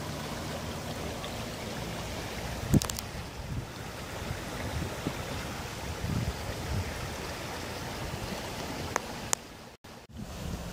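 Muddy floodwater of a river in spate after heavy rain, flowing steadily over its bed, with some wind on the microphone. A single knock about three seconds in and a brief dropout near the end.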